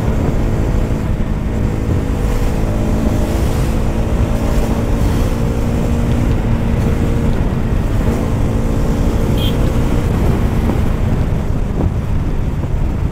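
Bajaj Pulsar NS200's single-cylinder engine running while riding, its pitch shifting gently a few times, under a heavy low rush of wind and road noise.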